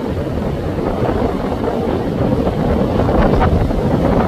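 Wind buffeting the microphone over the low rumble of a large motor yacht running through choppy water, with its wake splashing; the sound builds slightly louder.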